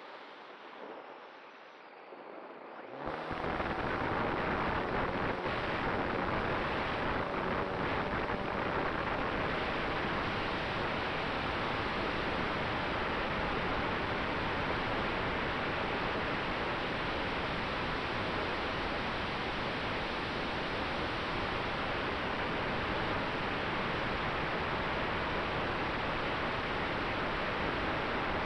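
Airflow and propeller wash rushing over the onboard camera microphone of a Cularis electric motor-glider in flight. It comes in suddenly about three seconds in, as the motor starts, and then holds steady as a loud, even hiss.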